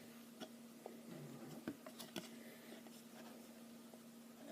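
Near silence: a few faint, soft clicks and taps of trading cards being handled, over a low steady hum.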